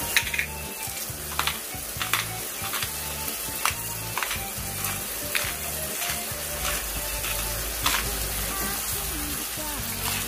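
Whole shrimp frying in butter and garlic in a pan: a steady sizzle broken by frequent sharp crackling pops.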